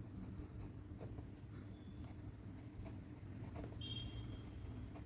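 A pen scratching on paper as words are written by hand, faint over a steady low hum. A brief high tone sounds about four seconds in.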